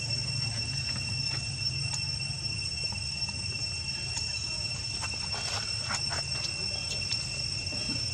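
Insects droning steadily in one high-pitched tone over a low, even hum. Faint crackles of dry leaves come about five to six seconds in.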